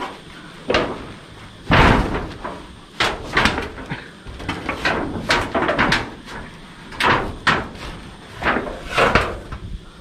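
An irregular series of sharp knocks and crackling rustles, about a dozen, unevenly spaced.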